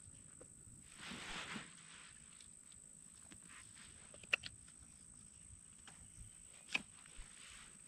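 Faint summer forest ambience: a steady high-pitched insect drone, with a brief rustle about a second in and a few sharp clicks later on.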